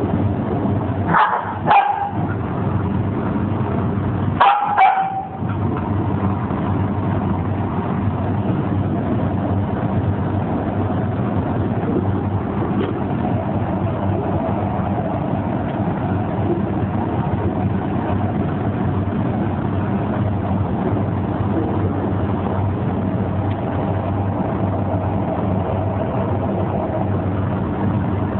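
A dog or puppy gives about four short yelps, each dropping in pitch, in two pairs in the first five seconds, over a steady low rumble.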